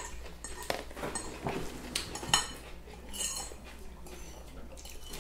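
Spoon clinking and scraping against a plate in irregular light strokes, with a couple of sharper clinks in the first half.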